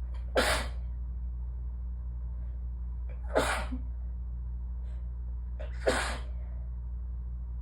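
A person sneezing three times into a tissue, about two and a half to three seconds apart, each sneeze sharp and brief: allergy sneezes.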